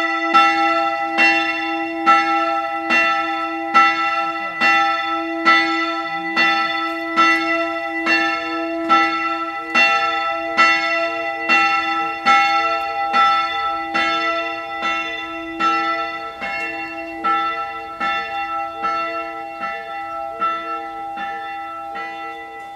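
160 kg bronze church bell tuned to e2, cast by the Dytrych family foundry and hung on an oak headstock with a classic clapper, swinging under its electric linear-motor drive. The clapper strikes about once every 0.85 seconds, with a long ringing tone between strokes, and the strokes grow gradually weaker.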